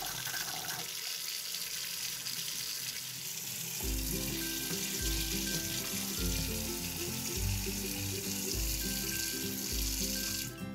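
Single-lever basin mixer tap running, its stream splashing into a ceramic washbasin, until the water cuts off just before the end. Background music with a steady bass beat comes in about four seconds in.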